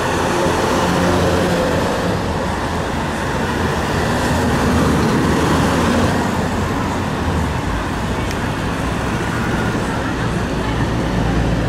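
Street traffic: cars and a minibus passing at low speed, with a steady wash of engine and tyre noise and a low engine hum that swells near the start and again near the end.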